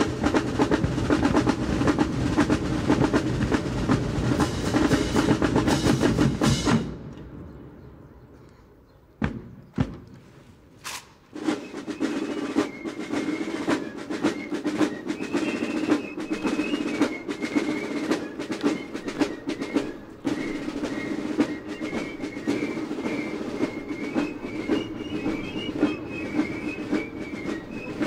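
Massed military marching drums, snares and bass drums, playing a fast rudimental drum solo. The drumming cuts off sharply about seven seconds in. A few single hits follow, and a steady marching beat starts up again about eleven seconds in.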